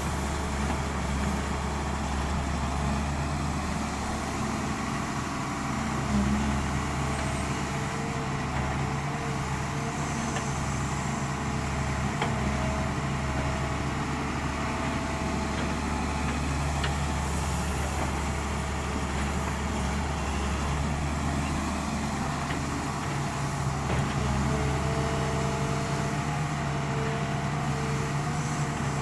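Doosan 140 excavator's diesel engine running steadily at work, with brief louder surges about six and twenty-four seconds in.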